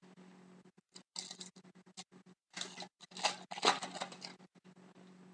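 Trading cards being handled and slid against one another: a few short papery rustles and flicks, the longest a cluster in the middle, over a faint steady hum.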